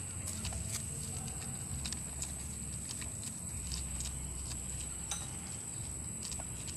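Tabby cat clawing at the fibrous bark of a fallen log: scattered dry scratches and clicks at an irregular pace.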